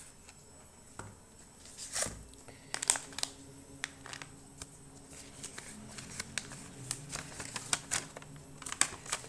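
Unboxing handling sounds: a cardboard box, a shiny foil bag and a folded paper brochure being handled and lifted out, with crinkling and rustling and scattered sharp clicks and taps.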